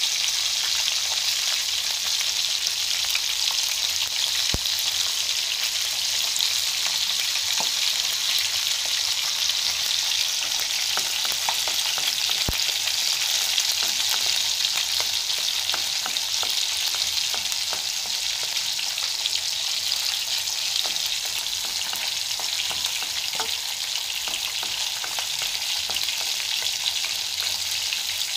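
Strips of ginger frying in hot oil in a wok, a steady sizzle, with a few light knocks of a wooden spatula stirring them.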